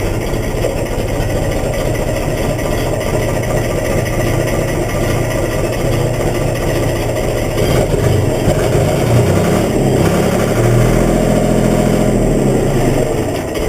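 Case 385 diesel tractor engine running steadily, then revved up and down a little louder from about eight seconds in.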